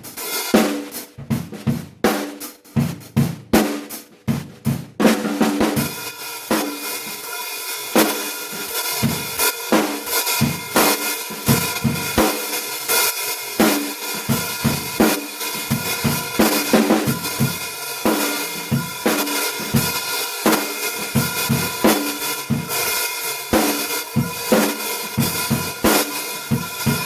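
Zeus Spiral 14-inch B20 hi-hats played in a drum-kit groove with kick and snare. For about the first five seconds the strokes are short and separate, then from about five seconds in a continuous ringing cymbal wash sustains over the beat.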